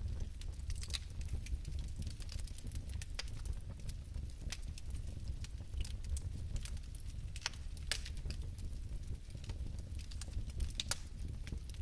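Fire burning in a fireplace: a steady low rumble with irregular sharp crackles and pops, several each second.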